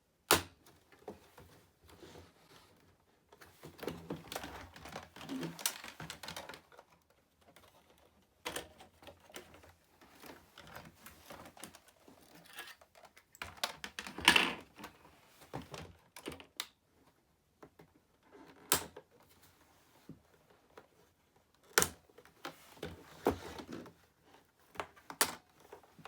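Hard plastic parts of a Roomba 780 robot vacuum being handled during disassembly: scattered sharp clicks and knocks with stretches of clattering and rustling between them.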